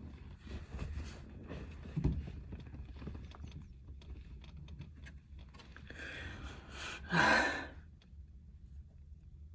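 Hands rummaging in truck wiring, with faint rustles and clicks and a single knock about two seconds in. About seven seconds in comes a loud sigh.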